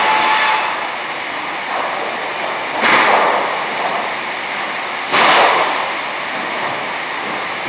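A small-log sawmill line running, with steady machine noise. Two sudden, short rushes of noise come about three and five seconds in, each lasting under a second.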